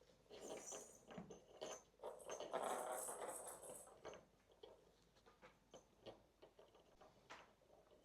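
Kittens playing: faint light taps and scratchy rustling of paws moving about, with a louder stretch of rustling about two and a half seconds in that lasts a little over a second.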